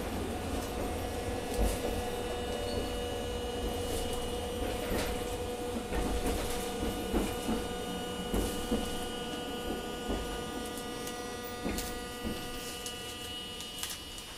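Hiroshima Electric Railway 800-series tram running under armature chopper control, heard from inside the car: a steady whine of several fixed tones over a low rumble, with scattered clicks and knocks from the wheels on the track. It grows a little quieter towards the end.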